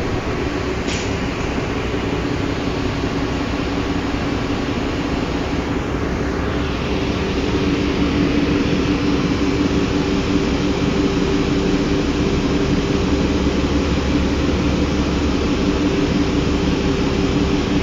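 Cummins ISL inline-six diesel engine of a 2005 New Flyer D40LF transit bus running with a steady drone and hum. It gets a little louder about seven seconds in.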